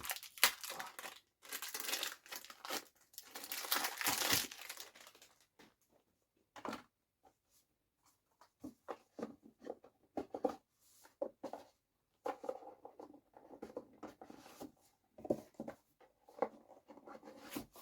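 Plastic packaging crinkling and tearing for the first five seconds or so. After a short lull comes a run of quick plastic clicks and clacks from a new speedcube being turned.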